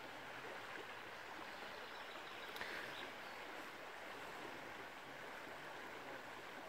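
Faint, steady rush of a small river flowing over a shallow riffle.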